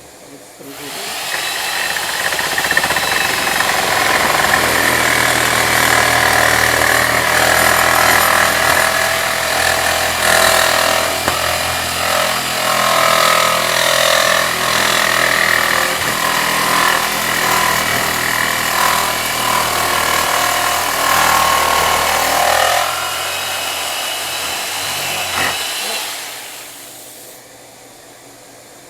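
Electric jigsaw cutting through a wooden board. The motor starts about a second in and runs with its pitch wavering under load, easing near the end before stopping.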